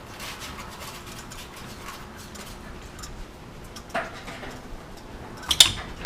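Scattered faint clicks and knocks of parts and tools being handled during dirt bike work, with a short knock about four seconds in and a sharp, loud clack about five and a half seconds in.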